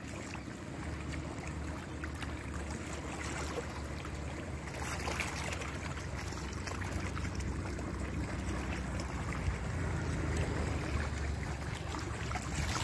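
Steady outdoor noise of wind and rippling lake water: a low rumble with a hiss and faint small splashes.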